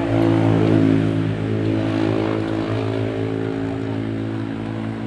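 An engine running with a steady hum, loudest about a second in and then slowly easing off.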